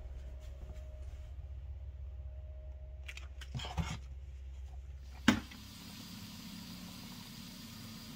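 Wet fleece handled in a plastic colander with faint clicks and a brief rustle, then a sharp click about five seconds in, after which a Panda portable clothes spin dryer runs with a steady motor hum, spinning water out of the wool.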